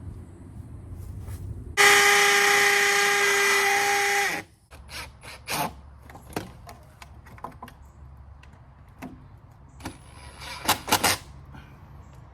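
Power drill running steadily for about two and a half seconds, drilling into the wall for Tapcon masonry screws to mount the timer box. Scattered clicks and knocks follow, and two short loud bursts come near the end.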